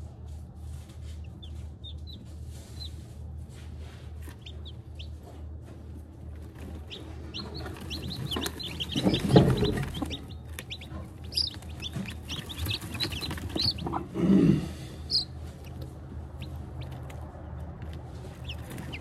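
Newly hatched chicks peeping, many short high cheeps, with a broody hen clucking louder and lower twice, about halfway through and again a few seconds later. A low steady hum runs underneath.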